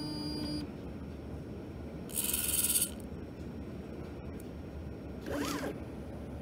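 Stepper motors of a gantry robot whining as its tool head moves, with a harsh rasping burst of just under a second about two seconds in and a brief whine that falls and rises in pitch about five seconds in.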